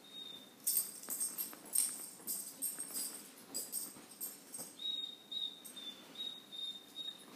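Metal dog collar tags jingling in a string of light, irregular clinks as a dog moves on a couch. A faint thin high whine follows in the second half.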